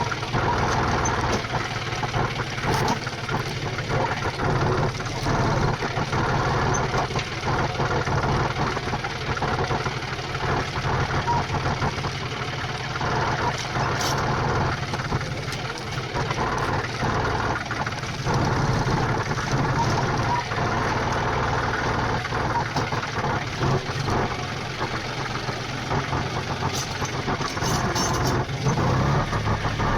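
Tractor engine running steadily at a low, even pace.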